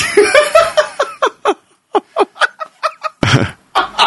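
A person laughing in a quick run of short bursts, about four a second, with a louder burst near the end.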